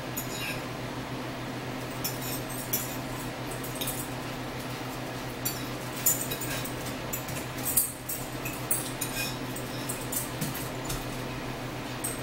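Eating at the table: a fork clinking and scraping on a plate, with chewing and small mouth clicks scattered throughout, over a steady low hum.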